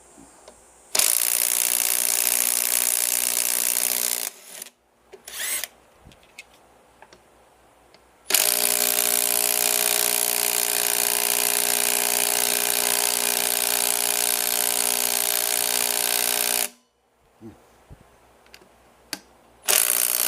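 Handheld power tool motor running with a steady whine in two long runs, about 3 seconds and then about 8 seconds, with a short blip between them.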